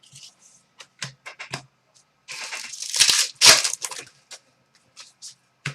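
Hockey trading cards being handled and slid past one another: scattered small clicks and snaps, with a longer rustling swish from about two to four seconds in.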